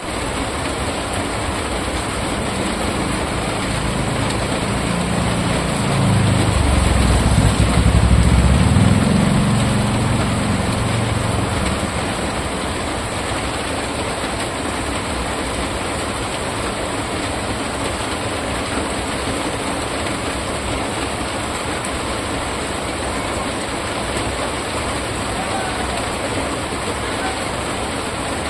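Steady rain falling in a continuous hiss. In the first third a low rumble swells up, peaks and fades away.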